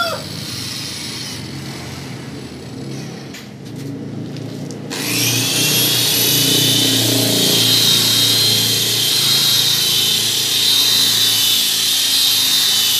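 Electric rotary car polisher with a foam pad running against a car door, buffing compound into dull paint. Its steady high whine comes in loud about five seconds in, rising briefly as the motor spins up, then holds.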